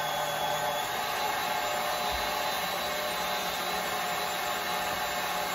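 Stand mixer motor running steadily, its wire whisk beating egg whites in a steel bowl. The meringue is close to stiff peaks.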